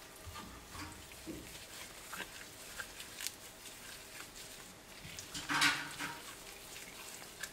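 Gloved hands kneading and turning pieces of raw trout in a glass bowl: faint wet squishing and small clicks, with one louder squish about five and a half seconds in.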